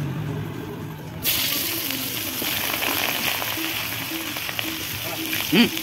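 Hot oil in an iron kadai sizzling, the hiss starting suddenly and loudly about a second in as ingredients go into the pan, with a metal spatula scraping and stirring. A brief, loud pitched cry near the end.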